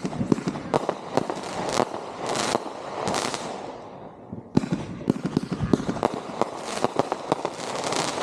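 Consumer fireworks going off in quick succession: many sharp bangs mixed with bursts of crackling.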